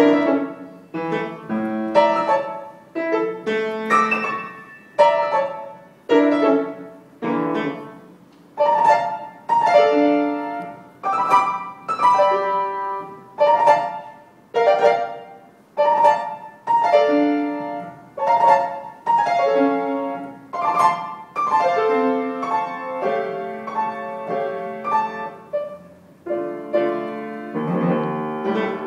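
Grand piano played solo: strong notes and chords struck about once a second, each ringing and fading before the next, with quicker, denser playing in the last few seconds.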